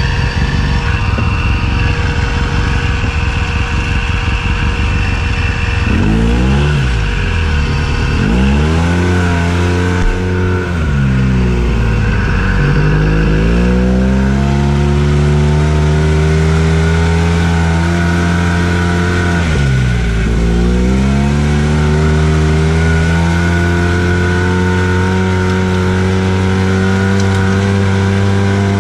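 Arctic Cat Wildcat Trail side-by-side's engine, heard from the cab while it is driven over sand. It starts as a low rumble, then revs up and eases off several times, the pitch climbing and dropping, before holding a steady high run for the last several seconds.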